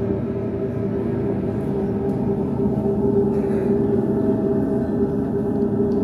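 Percussion ensemble music: a single steady, ringing held tone with overtones over a low grainy haze, with no beat or strokes.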